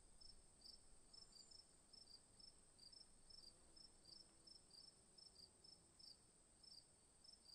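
Faint cricket chirping, about three chirps a second, over a steady high-pitched drone: a quiet nighttime insect ambience.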